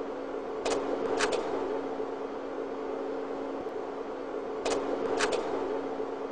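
Slide projector's fan humming steadily, with a click and then a quick double click about a second in and again near five seconds as the slides change.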